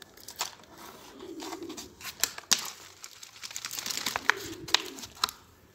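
Hands scraping and crumbling dry soil around a sapling's roots, an irregular run of crackles and scrapes with leaves rustling.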